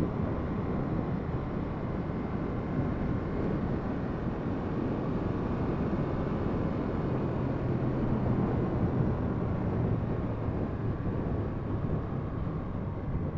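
A 2007 Ducati 695 Monster's air-cooled V-twin running at a steady cruise, mixed with a steady rush of wind and road noise, as picked up by the rider's hands-free headset microphone. A low steady engine note becomes clearer about halfway through.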